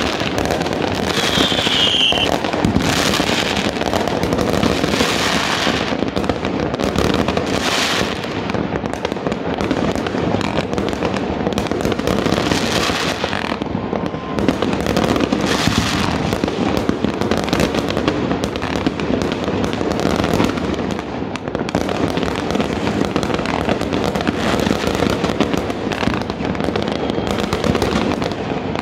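Many fireworks going off at once: a continuous barrage of bangs and crackling from rockets and aerial shells, with a short falling whistle about a second in.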